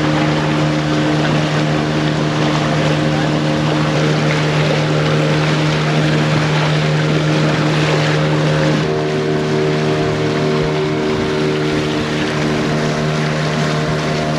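Outboard motor of an outrigger boat running steadily under way, a constant hum whose upper tones change about nine seconds in. Water rushes and splashes along the hull and the outrigger float.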